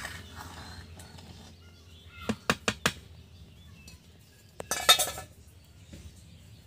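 Metal utensils clinking against a cooking pot: four quick clinks about two seconds in, then a louder, brief metal clatter about five seconds in.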